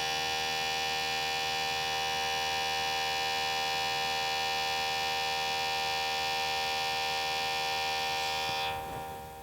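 DVD drive spinning a disc with a steady whirring hum, then winding down near the end.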